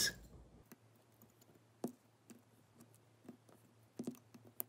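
Side cutters snipping the protruding leads of through-hole components on a circuit board: quiet, sharp clicks at uneven spacing, with a cluster of them near the end.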